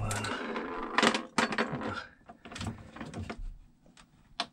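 Light metallic clicks and scrapes of a washer, cable lug and nut being fitted by hand onto a battery terminal stud, with a sharp click near the end.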